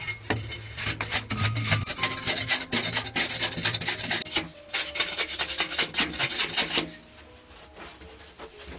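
Metal blade scraping and shaving a packed-earth wall in rapid gritty strokes. The scraping stops about seven seconds in.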